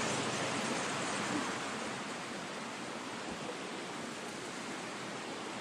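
Spruce Flats Falls rushing: a steady, even wash of falling water that eases slightly about two seconds in.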